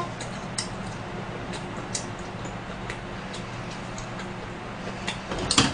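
Quiet room tone: a steady low hum with a few faint scattered ticks, and a sharper click near the end.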